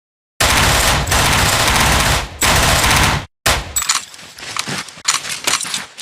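MP18 submachine gun with a drum magazine firing two long full-automatic bursts, the first about two seconds long and the second about one, followed after a short pause by a string of separate sharp cracks and clacks.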